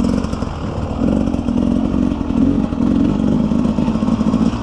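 Beta 300 RR two-stroke enduro motorcycle engine running under way at fairly steady revs, the note wavering quickly.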